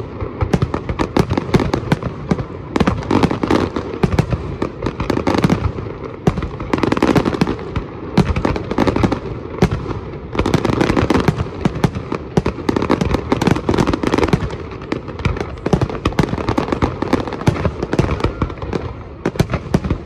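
Fireworks display at full barrage: aerial shells bursting in rapid overlapping bangs with dense crackling between them, many reports a second, swelling into louder clusters every few seconds.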